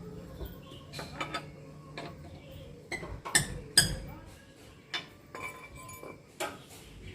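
Metal tools and wheel parts clinking and clanking in a series of sharp separate knocks, the loudest two in the middle, as a car wheel is worked on during a puncture repair.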